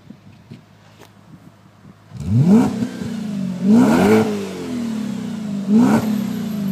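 Audi S4's 4.2 V8 through a Milltek stainless-steel exhaust, revved three times about two seconds apart, starting about two seconds in. Each blip rises quickly in pitch and falls back to a deep, steady idle rumble.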